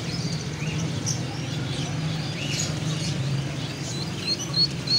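Caged ducklings peeping: scattered high chirps throughout, turning into a quick run of short, evenly spaced peeps near the end, over a steady low hum.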